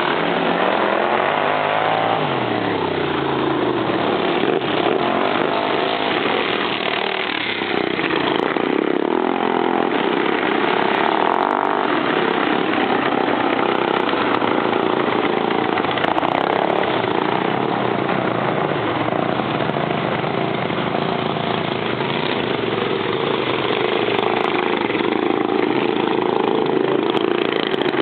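Several super-modified racing lawn mower engines running hard together, their pitch rising and falling as they rev and pass by.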